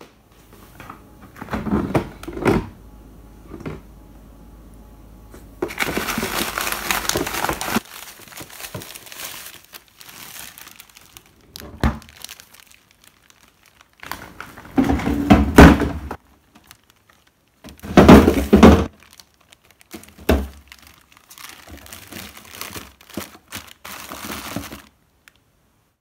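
A zip-top plastic freezer bag holding frozen daikon being handled and crinkled. There is a long stretch of crinkling about six seconds in, and several loud knocks and thuds in the second half.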